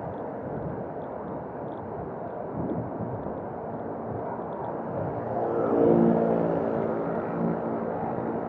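Steady road and wind noise while cycling in traffic. A motor vehicle passes close about five seconds in, its engine hum swelling and then fading.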